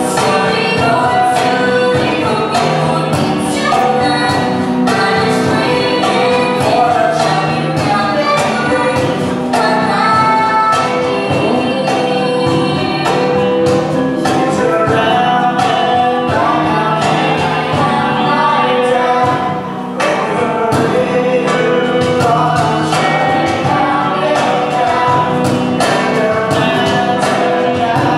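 Live music with several voices singing together.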